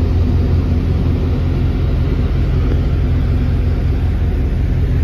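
Patrol boat engines running in a loud, steady low drone, with a constant hum under a wash of noise.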